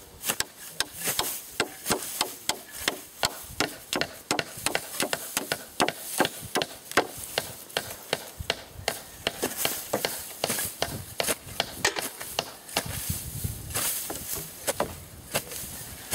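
Repeated sharp strikes of a long-handled digging tool chopping down into sod and soil to dig a fence-post hole, roughly two blows a second at an uneven pace.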